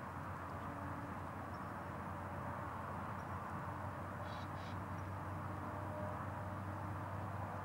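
Steady outdoor background hum and hiss, with two short high bird calls in quick succession about four and a half seconds in.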